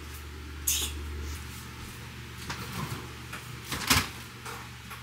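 A few light kitchen clicks and knocks, then a louder thump about four seconds in as a refrigerator door is pulled open.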